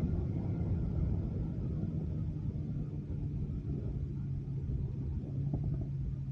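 2022 BMW S1000RR's inline-four engine with an aftermarket M4 exhaust running at low revs: a deep, steady exhaust rumble with a low engine tone holding steady in the second half.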